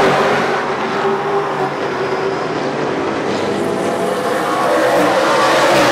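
A field of late model race cars running at speed around an oval track, several engines overlapping, growing louder near the end as cars come by.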